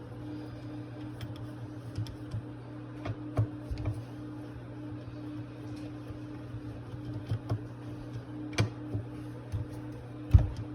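Scattered light clicks and taps of tools and small metal parts being handled as a Rochester 2GC two-barrel carburetor is taken apart, with a heavier knock near the end, over a steady low hum.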